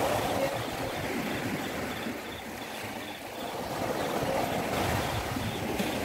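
Small waves breaking and washing up a sandy beach, foam hissing over the sand. The surf eases off around the middle and swells again with the next wave.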